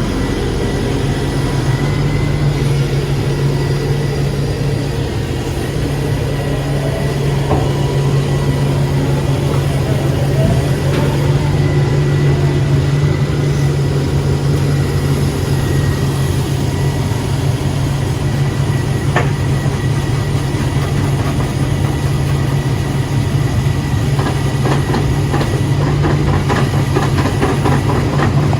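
Diesel engine of a Volvo excavator running steadily with a deep, even hum and mechanical clatter. A fast, even ticking joins in over the last few seconds.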